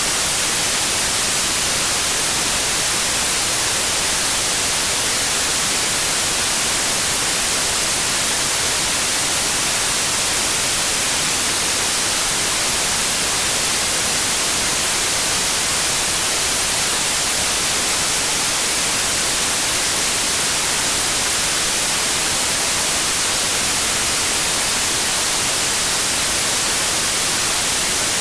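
Steady, unchanging white noise: an even hiss with most of its energy in the high frequencies.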